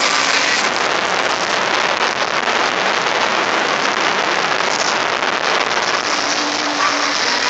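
Jet engine of a jet-powered Smart car running as the car moves, giving a loud, steady rushing noise with no break.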